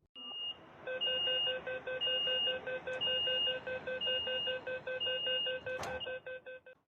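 Metro train door-closing warning signal: a rapidly pulsing electronic beep with a higher tone sounding for half a second about once a second, lasting about six seconds, with a sharp knock near the end.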